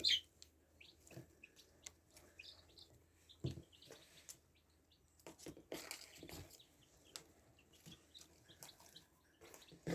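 Chicks peeping faintly in short scattered chirps while being handled, with a few soft knocks and rustles.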